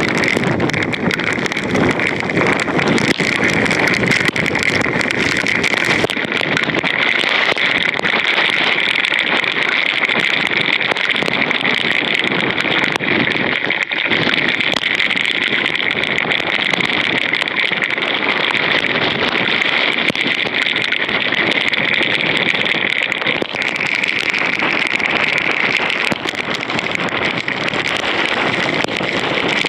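Heavy hurricane rainband rain hissing steadily, with wind buffeting the microphone, strongest in the first few seconds.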